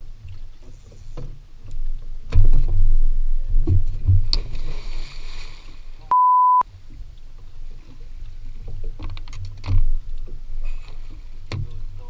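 Wind buffeting the microphone of a boat-mounted action camera as a low rumble, with heavy thumps and knocks a couple of seconds in and a splash in the water around the bow. About six seconds in, a half-second steady high beep replaces all the sound: a censor bleep over a swear word.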